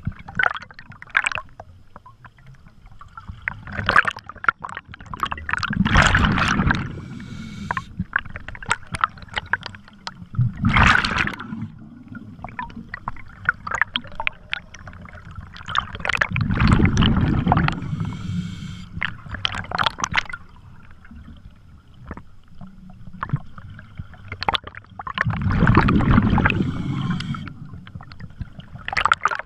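Scuba regulator exhalations underwater: four long bubbling bursts several seconds apart, with a light crackle of rising bubbles in between.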